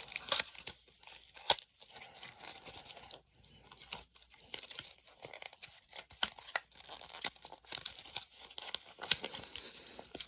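Toy packaging being torn open and crinkled by hand: irregular tearing and crackling with sharp snaps, the loudest about a second and a half in.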